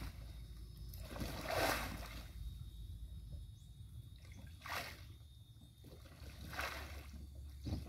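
Kayak paddle strokes: the blade splashing into the water four times, a second or two apart.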